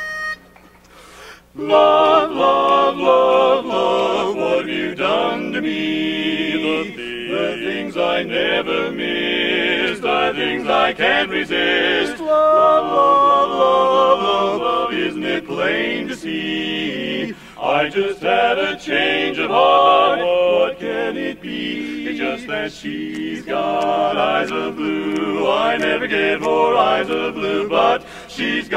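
Barbershop quartet: four men's voices singing a cappella in close harmony. The singing starts about a second and a half in, after a brief quiet.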